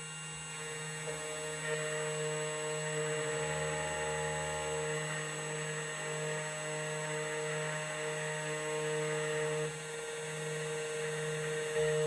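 Electronic key cutting machine running steadily as its cutter mills a Toyota TOY48 key blade: a steady motor hum with a grinding hiss over it, which eases briefly about ten seconds in.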